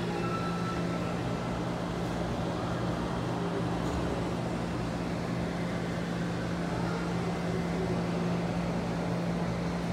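Steady indoor shopping-mall ambience: a constant low hum under a broad wash of background noise.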